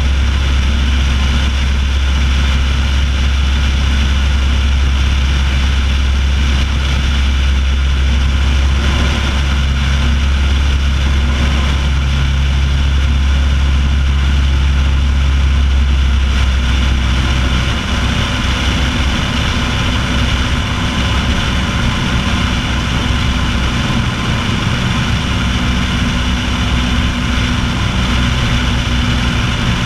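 Piper Pacer light aircraft in flight: the piston engine and propeller drone steadily under rushing airflow noise on a microphone mounted outside on the wing strut. About two-thirds of the way through, the low engine hum shifts in pitch and becomes slightly quieter, a change in engine power.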